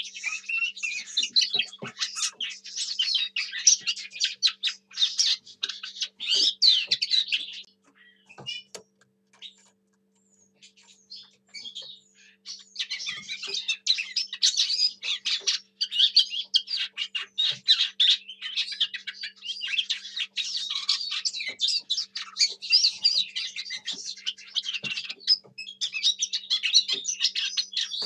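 Lesser whitethroat singing a long, rapid warbling song. It breaks off for about four seconds partway through, then resumes.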